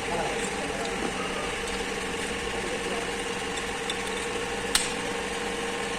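A motor running steadily with an even hum, and one sharp click a little before the end.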